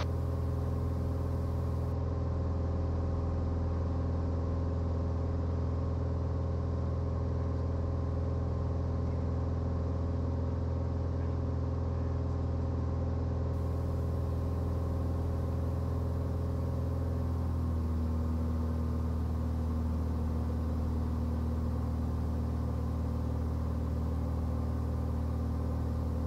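Cirrus SR20's four-cylinder Lycoming IO-390 engine and propeller droning steadily at reduced power on final approach, heard in the cabin. Its tone shifts slightly about two-thirds of the way through.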